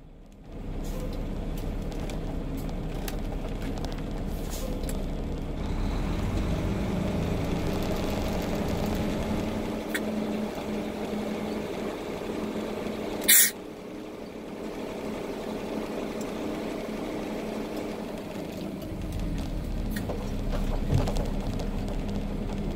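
A semi truck's diesel engine running steadily, heard from inside the cab. About thirteen seconds in there is one short, sharp hiss of released air, the loudest sound here.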